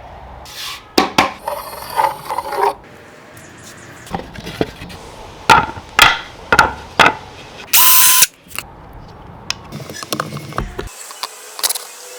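Workshop tool work: a series of sharp clicks, knocks and ratcheting clatter, with a brief loud burst of a power tool about eight seconds in.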